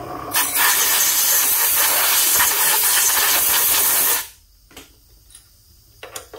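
Compressed-air blow gun blasting, clearing stainless chips off a freshly reamed part: a loud, steady hiss that starts just after the opening and cuts off suddenly about four seconds in, followed by a few light clicks.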